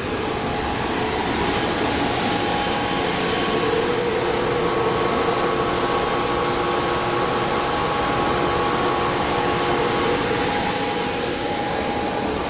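Grain-handling machinery running steadily: a constant whir with a few steady tones.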